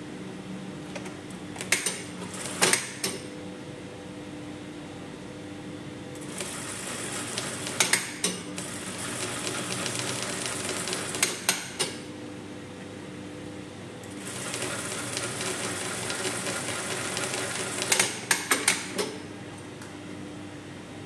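Brother industrial sewing machine stitching in two runs of several seconds each, the first starting about six seconds in and the second about fourteen seconds in. Sharp clicks and knocks come around two seconds in and in clusters as each run ends, over a steady electric hum.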